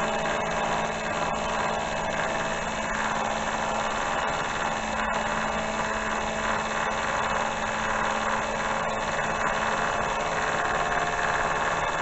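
Milling machine running steadily, a constant hum with a few faint ticks, during a light pass along a square steel workpiece to take the burr off.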